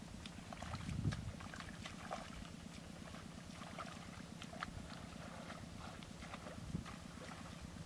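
Footsteps squelching and splashing through wet, muddy ground at an irregular walking pace, with a heavier low thump about a second in and another near the end, over a steady low drone.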